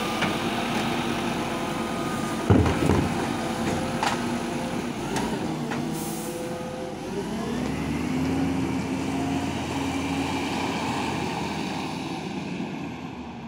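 Side-loader garbage truck's diesel engine running while the hydraulic arm works, with a heavy thump about two and a half seconds in as the bin comes down. A short air-brake hiss comes about six seconds in, then the engine speeds up as the truck pulls away.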